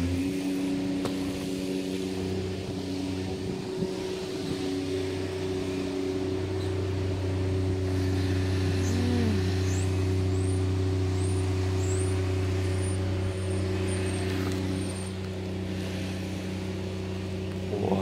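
An engine running steadily, a low even hum that holds one pitch throughout and grows a little louder midway.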